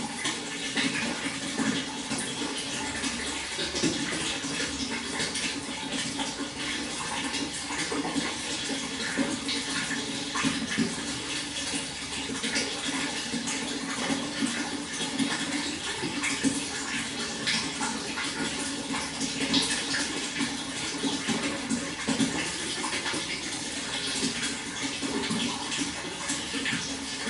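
Water flowing and splashing steadily, without letting up.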